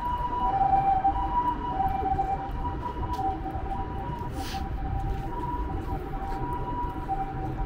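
Japanese ambulance siren: a two-tone hi-lo 'pee-po' call, switching between two pitches about every half second, over the low rumble of city traffic.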